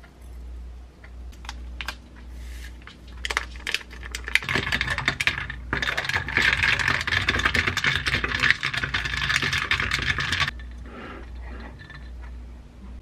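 Ice cubes clinking and rattling in a tall glass of iced kombucha as it is stirred with a straw: a dense clatter of about six seconds that starts and stops suddenly. A few scattered light clicks come before it.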